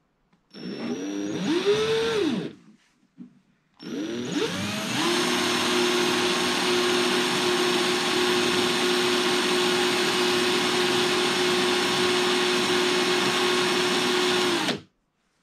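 Parkside cordless angle drill running free with no load, fairly quiet: a short burst of about two seconds that rises and falls in pitch, then after a brief pause a second run that winds up to a steady whine for about ten seconds and stops suddenly near the end.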